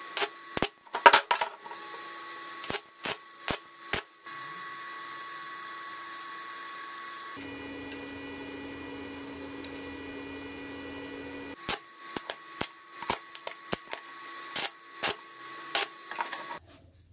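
Hammer striking metal parts on a wooden workbench in irregular taps, with a pause of several seconds in the middle, over a steady hum.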